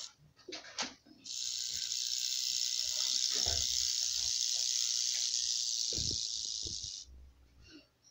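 Rattlesnake buzzing its tail rattle: a steady, dry, high-pitched buzz that starts about a second in, runs for about six seconds and cuts off suddenly.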